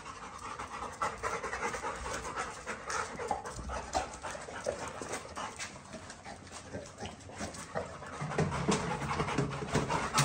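Yellow Labrador retrievers panting rapidly, worked up while courting before a mating, with claws clicking on the paving. A low steady hum comes in about eight seconds in.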